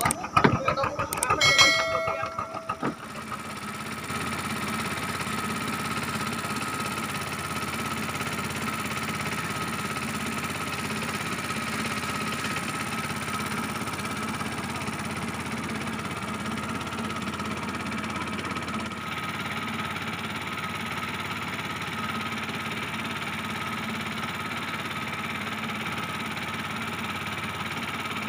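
A small wooden boat's 10 hp Yamaha engine running steadily under way, a constant even drone. Before it, in the first three seconds, come a few sharp clicks and a short run of tones.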